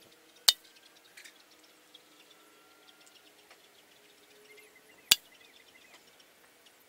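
Two sharp cracks, about half a second in and about five seconds in: .177 pellets from a Winchester 1028 air rifle striking aluminium drink cans, each hit knocking a can over.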